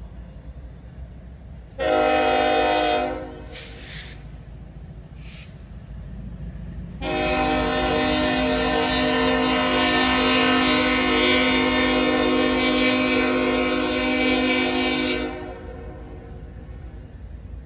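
Norfolk Southern freight locomotive's air horn: a short blast of about a second and a half, then a long blast of about eight seconds that cuts off near the end, over the low rumble of the passing autorack train.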